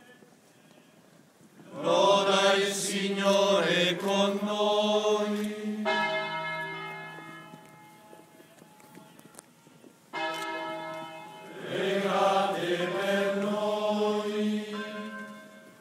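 Church bells ringing in two rounds, starting about two seconds and about ten seconds in, each ringing for several seconds before the tones die away.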